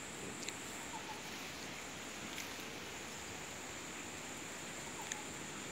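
Steady outdoor ambience dominated by a continuous high-pitched insect drone, with a few faint ticks and small bird-like chirps.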